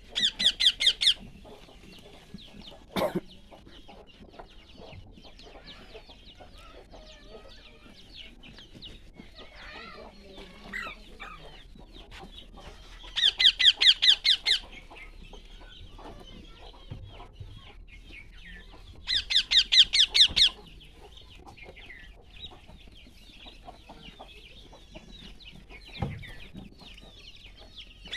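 Birds calling: three loud runs of rapid, high-pitched notes, each lasting about a second and a half, over a steady background of softer chirping. A sharp knock is heard a few seconds in.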